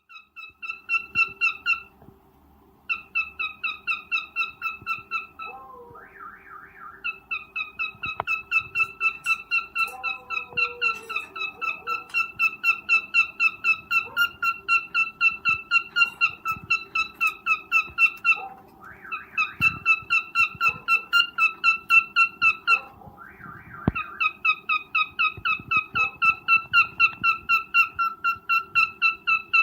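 Cockatiel giving its mating call: one short chirping note repeated about three times a second in long runs, broken by brief pauses with a few rising chirps.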